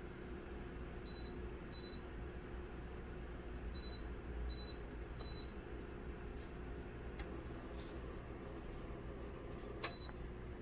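Electronic beeps from an appliance's touch control panel: six short, high single beeps at irregular spacing, as settings are tapped. A few soft clicks fall between them, over a low steady running hum.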